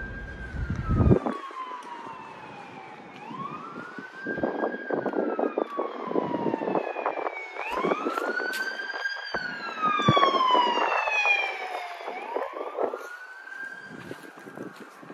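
An emergency-vehicle siren wails, its pitch rising quickly and then falling slowly, over and over about every four seconds. A low rumble stops about a second in.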